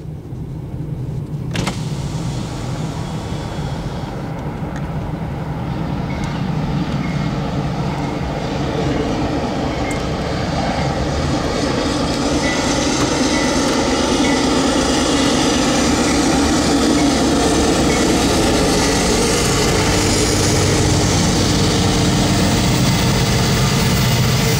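A car's road rumble, then the rumble of Union Pacific diesel locomotives and their train passing a grade crossing, growing steadily louder as the car pulls up close.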